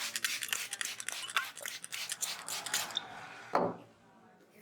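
Hands working an oiled scalp and hair: a dense run of wet crackling and rubbing for about three seconds, then one loud sharp smack a little after three and a half seconds.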